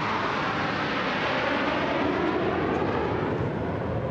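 Military jet aircraft flying past overhead: a broad, steady rush of jet engine noise whose tone slowly sweeps as they pass.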